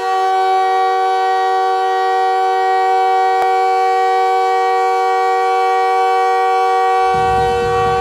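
Ice hockey arena goal horn sounding one long, steady, loud blast of several tones at once. About seven seconds in, the goal song with a heavy beat starts underneath it.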